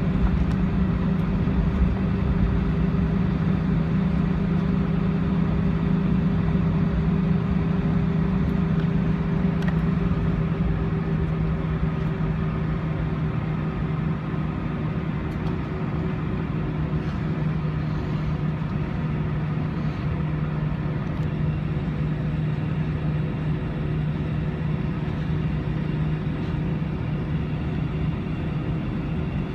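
Airbus A320's IAE V2500 turbofan engines at idle, heard inside the cabin beside the wing: a steady low drone with a humming tone, as the airliner lines up on the runway and holds before the takeoff roll. About halfway through, the drone eases slightly lower and quieter.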